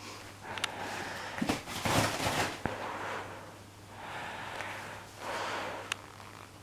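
English Cocker Spaniel puppy snuffling and sniffing in several short breathy bursts, with a few small clicks.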